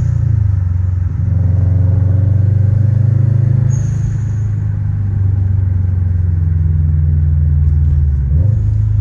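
Car engine and road noise while driving, a loud steady low drone; a short high whistle about four seconds in, and the engine note dips and changes briefly near the end.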